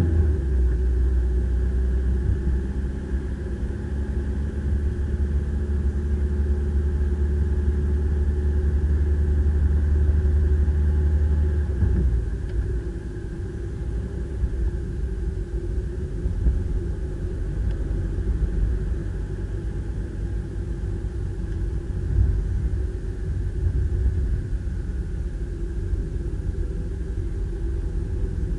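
Car engine and road noise heard from inside the cabin while driving. A steady low drone lasts until about halfway through, then drops away, leaving a rougher low rumble.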